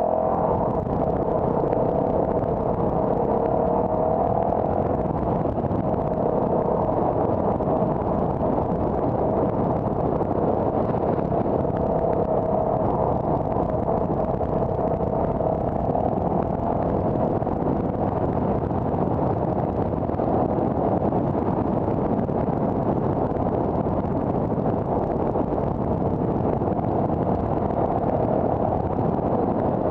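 Car driving at a steady pace: continuous engine and road noise with a hum that drifts slowly up and down in pitch.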